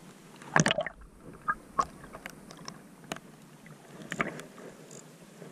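Small waves sloshing and slapping against a camera held at the sea surface as it bobs in and out of the water. A few sharp splashes, the loudest about half a second in, over a low watery wash.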